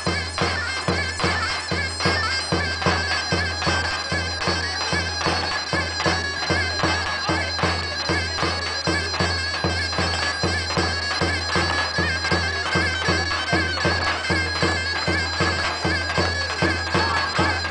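Black Sea tulum bagpipe playing a fast horon dance tune, its reedy melody carried over a quick, even low beat of about three pulses a second, heard through the stage loudspeakers.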